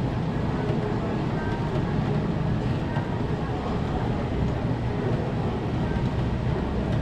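Steady, low rumbling background of a busy street-food stall with a murmur of voices, over which long French fries bubble in a deep fryer of hot oil as they are stirred with tongs.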